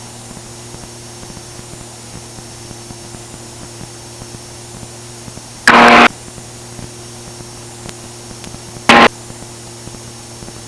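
Steady electrical hum and hiss of an aircraft's headset intercom and radio feed, made of several fixed low tones. It is broken twice by short, loud, clipped radio bursts: one about six seconds in carrying a brief snatch of voice, and a shorter one near the nine-second mark.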